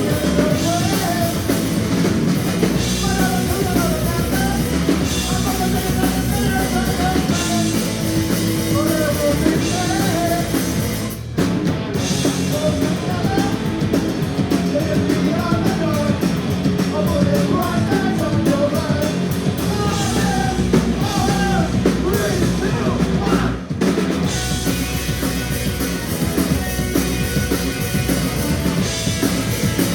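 A live band playing a loud number over a drum-kit beat, with wavering melodic lines on top. The music stops briefly twice, about eleven and twenty-three seconds in.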